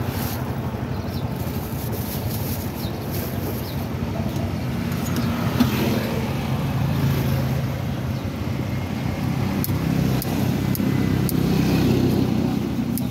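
Steady hum of road traffic going by. A few light, sharp clicks come near the end.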